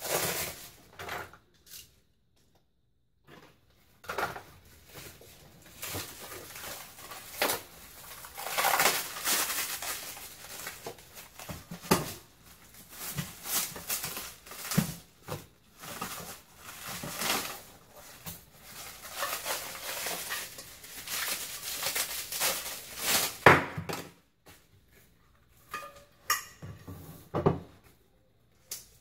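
Plastic packaging rustling and crinkling as stereo microscope parts are unwrapped by hand, with occasional sharp clicks and knocks of parts being handled.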